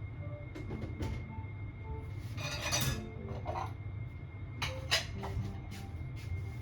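Dishes and utensils clinking and knocking, with a brief rush of noise about two and a half seconds in, over soft background music.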